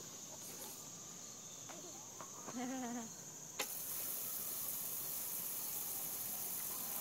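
A toddler's short wavering vocalization about two and a half seconds in. A click about a second later, then a steady hiss of water running from the push-button fountain post.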